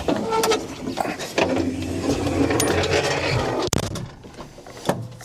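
Case 4690 tractor's diesel engine running, with sharp clicks and knocks over it; the sound drops off abruptly about three and a half seconds in.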